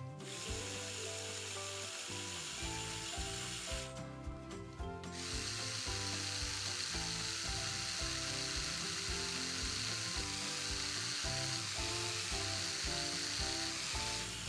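Electric Lego Technic motors and gearing of a remote-controlled rail crane running as it winches its hook up, with a short pause about four seconds in. Background music plays underneath.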